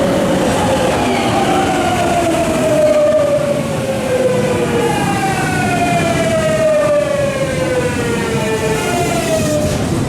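Hitachi GTO-VVVF inverter of a Tokyu 9000 series train whining as the train brakes. A tone with several overtones falls steadily in pitch, jumps back up about five seconds in, then falls again as the train slows, over steady running noise.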